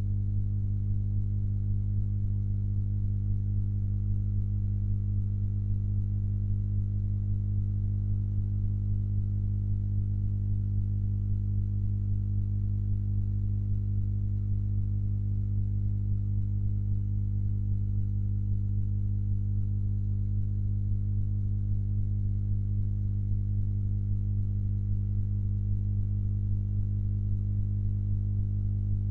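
Steady electrical hum, a low drone with a stack of higher overtones, unchanging throughout.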